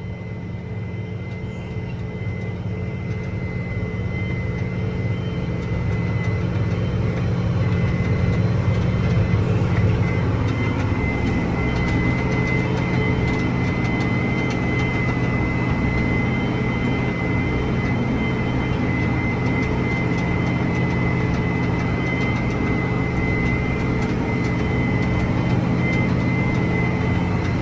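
John Deere 8335R tractor's diesel engine running steadily under load while pulling a tillage tool through corn stalks, with a steady high whine over the drone. The sound grows a little louder over the first several seconds, then holds even.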